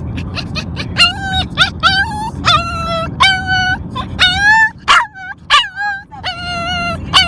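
A puppy whining and yelping over and over, about two high-pitched cries a second, some short and some drawn out into longer whines, in protest at being shut in a small plastic carrier.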